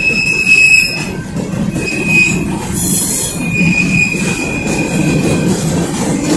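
Freight train of covered hopper cars rolling past at close range: a steady low rumble from the wheels and rails, with a high thin wheel squeal that comes and goes. A brief high hiss comes about halfway through.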